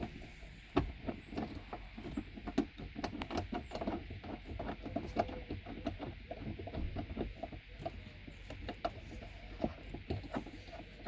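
Seatbelt anchor bolt being fitted and threaded in by hand: irregular small clicks and knocks of metal and trim, with a sharp click right at the start.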